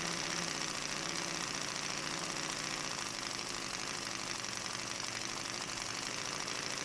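Halo five-cylinder radial model engine running steadily on compressed air and spinning its propeller, with a fast, even rhythm.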